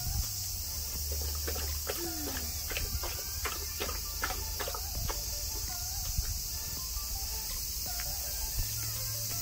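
Doberman lapping water from a bowl, a quick run of wet laps in the first half, over a steady high buzz of summer insects.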